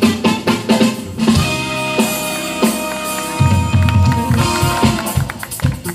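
Live jazz band playing: drum kit strikes, a heavy bass line and electric keyboard. Midway the drums and bass ease off under long held notes, then come back in.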